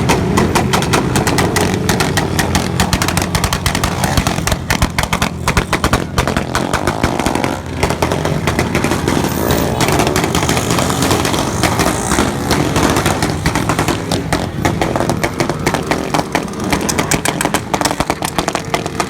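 Motorcycle engine running loud, with a rapid crackling exhaust.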